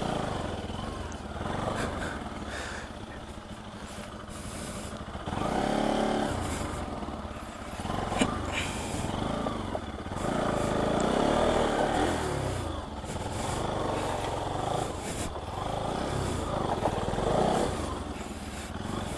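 Bajaj Pulsar NS200's single-cylinder engine revving up and down several times as the motorcycle labours over a slushy off-road track.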